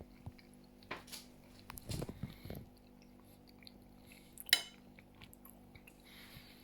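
Quiet eating sounds: a fork clinking against a dish, with one sharp clink about four and a half seconds in, and soft chewing and handling noises.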